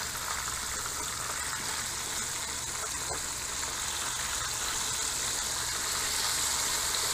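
Fish frying in hot oil in a pan on a propane camping stove: a steady sizzle that grows a little louder towards the end as the pieces are turned over.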